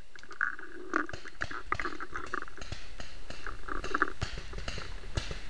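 Rustling and scraping close to the microphone, broken up by many small scattered clicks: handling noise from a marker-mounted camera being shifted about.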